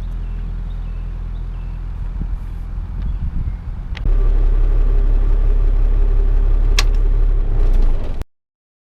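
An engine running steadily at a low idle. About four seconds in it turns much louder and busier, as if throttled up, then cuts off abruptly.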